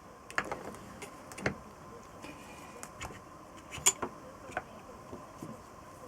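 Scattered clicks and knocks of parts and tools being handled during assembly work on a motorcycle engine, the loudest about four seconds in, over a faint steady hum.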